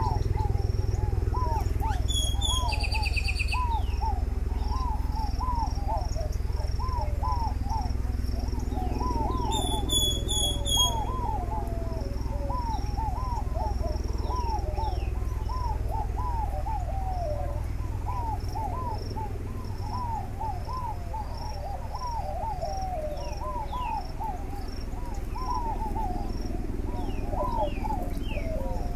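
Outdoor wildlife ambience: birds calling over and over in short, rising-and-falling phrases, with two brief bursts of high chirping, about two seconds in and again about ten seconds in. A steady low rumble runs underneath.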